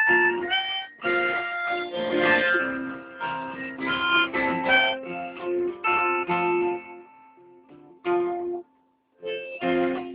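Harmonica playing an instrumental break over guitar: short held notes and chords. The playing thins out and stops briefly about nine seconds in, then starts again.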